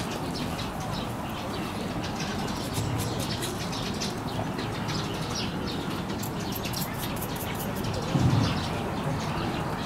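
Small birds chirping and twittering in short, frequent calls over a steady outdoor background, with one brief louder low sound about eight seconds in.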